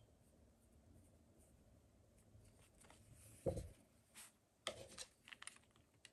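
Faint handling noises of yarn being wrapped around a wire flower stem: a soft bump about three and a half seconds in, then a few light rustles and clicks.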